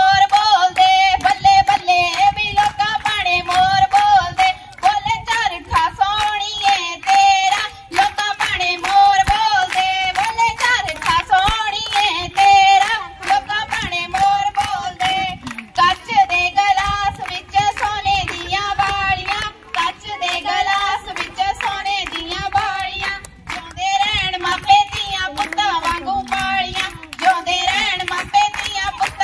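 Group of girls singing Punjabi boliyan together over steady rhythmic hand-clapping, the accompaniment of a gidha dance.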